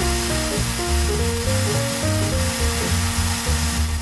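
Background music: a stepping melody over a pulsing bass line.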